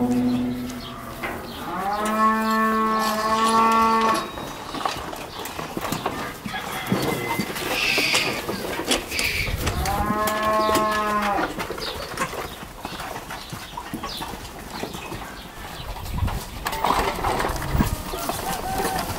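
Cattle mooing: a call trailing off at the very start, a long moo from about a second and a half in, and another moo around ten seconds in. Scattered light knocks sound between the calls.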